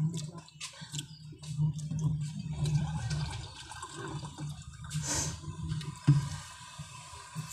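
Wet mouth clicks and lip smacks from eating and licking fingers, over a steady rushing noise, with a louder hiss about five seconds in and a sharp click a second later.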